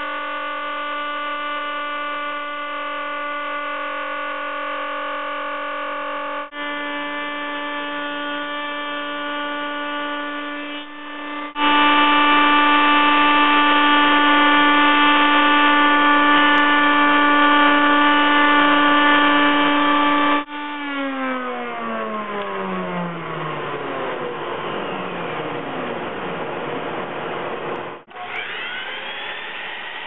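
Table-mounted router spinning an eight-sided birdsmouth bit with a steady high whine, louder for several seconds while a wooden stave is fed through the bit. About two-thirds of the way in it is switched off and its whine falls steadily in pitch as it winds down. Near the end a compound miter saw's motor starts with a rising whine.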